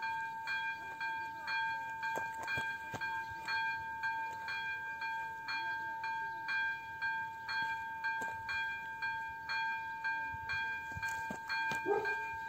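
Electronic level-crossing bell (AŽD type 02) of an AŽD 97 railway crossing warning signal ringing, an even ding about twice a second over a steady tone: the crossing has been activated for an approaching train.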